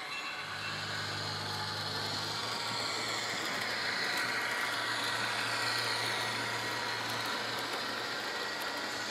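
Model EMD E8A diesel locomotive's ESU LokSound decoder playing diesel engine sound through its onboard speaker, with the rolling noise of the train on the track. The sound swells a little in the middle as the locomotive passes close by.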